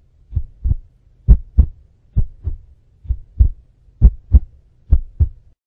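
Heartbeat sound effect: slow, even lub-dub double thuds, six pairs at about 65 beats a minute over a faint low hum, stopping just before the end.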